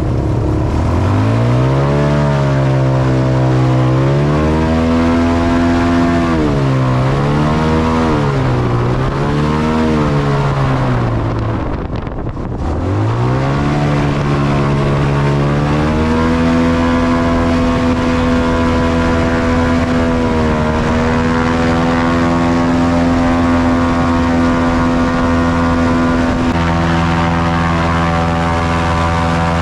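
An airboat's engine and propeller running loud. The pitch climbs and falls several times as the throttle is worked, drops off sharply about twelve seconds in, then climbs back up and holds a steady high speed for the rest of the time.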